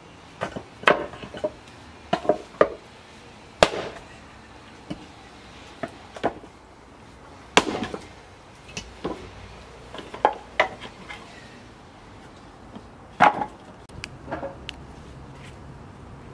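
Axe chopping and splitting old wooden boards: sharp wooden chops and cracks at irregular intervals, with pauses of a few seconds between some strokes.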